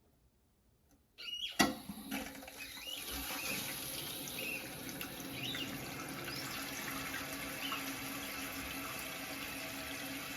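Toilet refilling with water after the supply is turned back on: a sharp click about a second and a half in, then a steady hiss of water running in through the fill valve, with a faint low hum.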